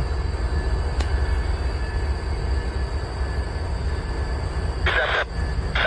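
Diesel locomotives running with a steady low rumble as a locomotive eases into the rail yard. About five seconds in, a short burst of noise from a radio scanner.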